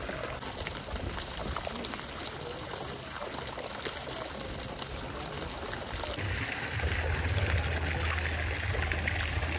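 Water running and trickling as a steady hiss; about six seconds in it changes, with a brighter hiss and a steady low hum joining.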